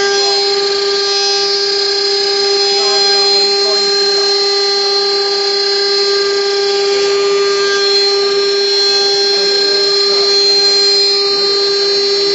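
CNC router spindle running with a steady high whine as its end mill cuts a pocket into a solid wood block, with the gritty noise of the cut under the tone.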